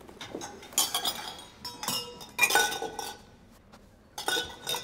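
Metal cups, goblets, bowls and pitchers clinking against one another as they are handled and packed into baskets. It is a series of sharp clinks, several of which ring briefly.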